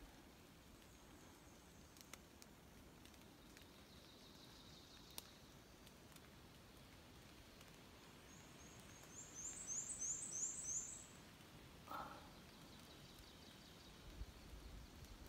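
Near silence with a small songbird singing a high, thin series of about eight quick notes that grow louder, a little past the middle. A fainter high trill comes about four seconds in.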